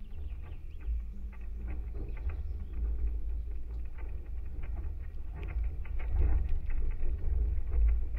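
Wooden maypole heard through contact microphones: a deep, uneven rumble of vibration in the pole, with many small irregular ticks and taps as the ribbons tied at its top tug and shift against it.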